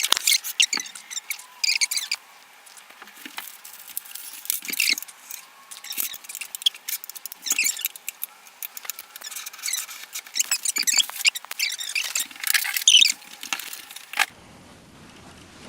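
Packaging being opened and handled by hand: irregular scratching and rustling with small squeaks, stopping shortly before the end, when a quiet steady hiss takes over.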